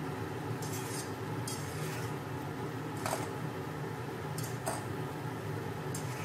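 Two metal forks scraping and clinking against the side of a cooking pot as stir-fried noodles are tossed: several short, separate scrapes, over a steady low hum.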